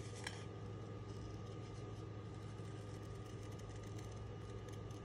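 Small paper snips cutting cardstock in faint, crisp snips over a steady low hum.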